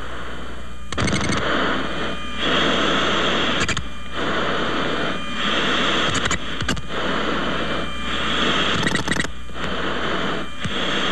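Radio static hiss coming in stretches of about a second each, broken by short gaps and clicks.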